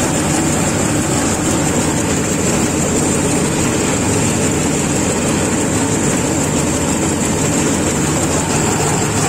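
ACE track-type combine harvester running while harvesting. Its engine and machinery make a steady, loud mechanical noise with a constant high whine on top.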